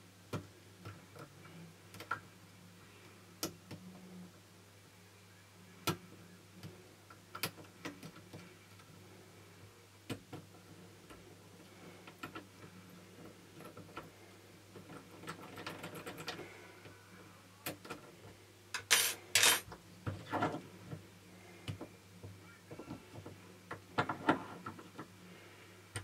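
Light, irregular metallic clicks and scrapes of a pick and tension wrench working the pins of a brass Securit euro cylinder lock with standard pins, no security pins. A few louder sharp metallic clacks come about two thirds of the way through and again near the end.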